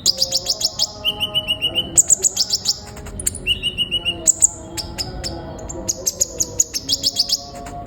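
Sunbird ('kolibri ninja') singing: rapid runs of sharp, high chirps repeated in short phrases, mixed with faster, lower trills.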